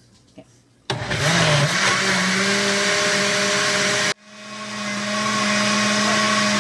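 Countertop blender blending a thick milk-and-cream-cheese mixture. It starts about a second in and runs steadily, stops abruptly around four seconds, then starts again at once and builds back up to full speed.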